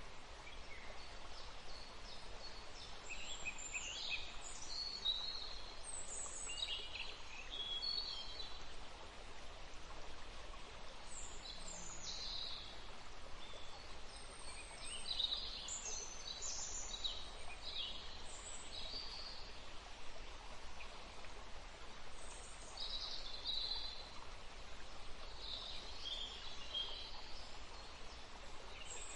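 Forest ambience: a small stream running as a steady hiss under frequent chirps and calls from several songbirds.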